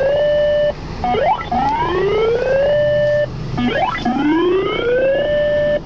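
Radio Emergency Alert System tone going off for a blizzard warning: a siren-like tone rising over about two seconds and holding briefly at the top, repeating roughly every two and a half seconds with a short beep between cycles.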